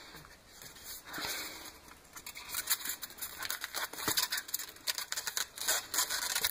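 Tape-wrapped foam toy airplane fuselage being picked up and turned in the hands: packaging tape and foam crinkling and creaking. A soft rustle about a second in, then a quick run of small crackles and clicks from about two seconds in.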